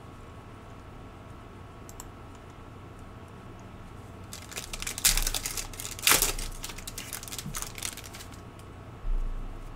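Foil wrapper of a Panini Prizm basketball card pack being torn open and crinkled: a few seconds of crackling tearing that starts about four seconds in, loudest in two sharp rips, then a low thump near the end.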